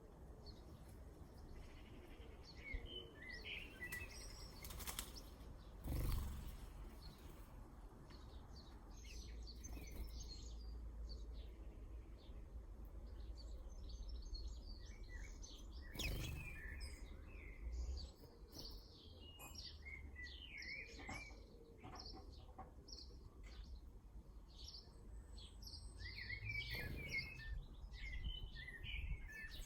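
Small garden birds chirping and twittering, with a few brief sudden sounds that may be wing flutters, over a low background rumble.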